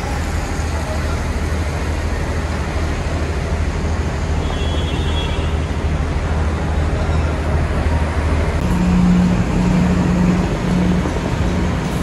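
Steady road vehicle noise with a constant low rumble; from about nine seconds in, a low engine hum rises over it for a couple of seconds.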